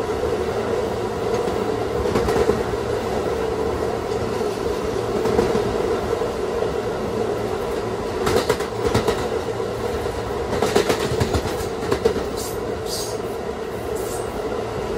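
Kawasaki R211A subway car with Alstom IGBT-VVVF propulsion running through a tunnel at steady speed, with a steady hum throughout. Wheels clatter over rail joints in two bursts past the middle, and brief high wheel squeals come near the end.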